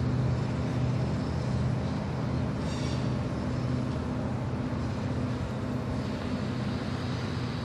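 The diesel of a Railpower genset locomotive running steadily with a low drone, plus a short high-pitched squeal about three seconds in.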